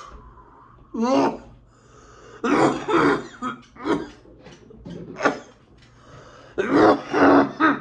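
A man coughing hard in a series of harsh bursts, with a long bout near the end, after inhaling vapour from a disposable wax vape pen.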